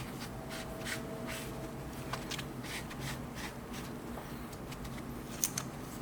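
Alcohol-soaked melamine foam (Magic Eraser) being scrubbed over a laptop processor to lift old thermal paste: soft, irregular rubbing strokes, with a sharp tick about five seconds in.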